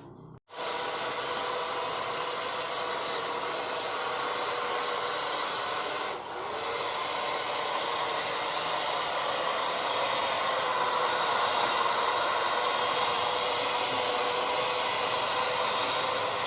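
Electric hedge trimmer running steadily at full speed. It switches on suddenly about half a second in and drops briefly once about six seconds in.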